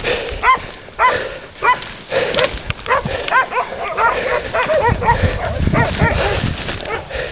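Pig-hunting dogs barking, a run of short barks that come faster and overlap from about two seconds in, typical of dogs baying at a wild pig.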